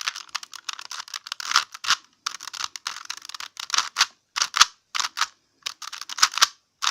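A plastic Rubik's Cube being turned fast during a speed-solve. Its layers clack in rapid runs of clicks, broken by short pauses about two seconds and four seconds in.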